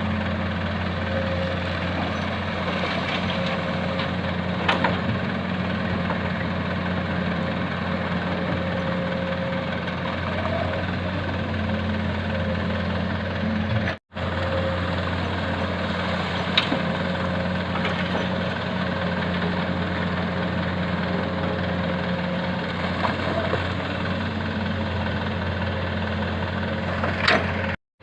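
Heavy diesel engine of earth-moving machinery running steadily with a deep, even hum, while a few sharp clicks and knocks sound over it. The sound cuts out for a moment about halfway through.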